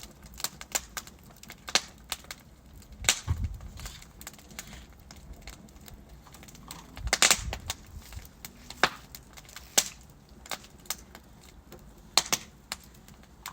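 Logs burning in a fireplace, crackling with irregular sharp pops and snaps, a few much louder ones about 3, 7, 10 and 12 seconds in.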